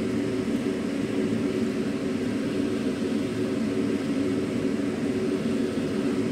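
Steady, even rushing hum of kitchen background noise, with no chopping or knocks on the board.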